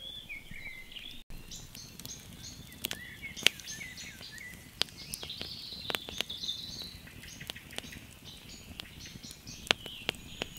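Wood fire of split logs crackling, with sharp pops at irregular intervals, the loudest about three and a half seconds in. Birds sing throughout in the background.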